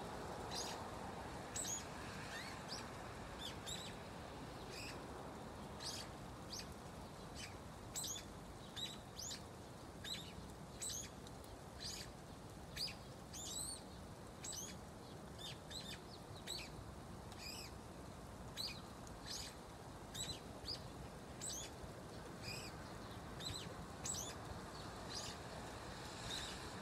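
A brown-eared bulbul calling over and over in a soft, cute, chick-like voice: short high notes that drop steeply in pitch, about one or two a second.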